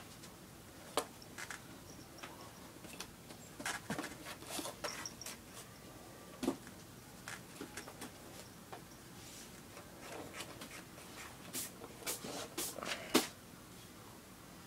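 Scattered light clicks, taps and rustles, bunched about four seconds in and again near the end, the loudest a sharp tap about thirteen seconds in.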